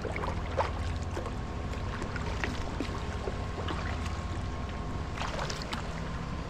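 Sea kayak being paddled: paddle strokes splash and water trickles along the hull in irregular bursts, a cluster of splashes about five seconds in, over a steady low rumble.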